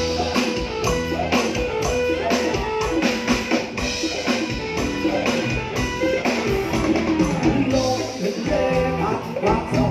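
Live band music: a steady drum kit beat under guitar and other instruments, a passage with no sung words.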